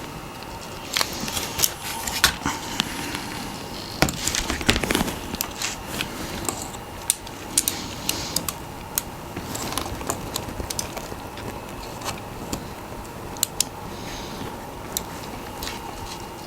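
Irregular small clicks, taps and scrapes of a screwdriver prying at the plastic parts of a mechanical keyboard, working a piece loose that will not come off easily.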